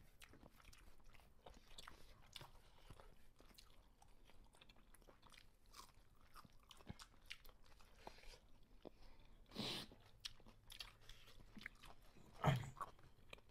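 Quiet chewing of biryani and faint clicks of fingers working rice on stainless steel plates. A short louder rustle comes about ten seconds in, and a sharp knock comes near the end.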